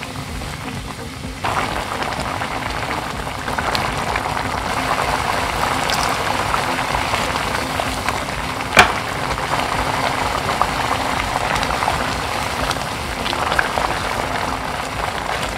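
Rice porridge with canned tuna bubbling and sizzling hard in a nonstick frying pan as it is stirred with a silicone spatula, a dense crackle that grows louder about a second and a half in. A single sharp click about nine seconds in.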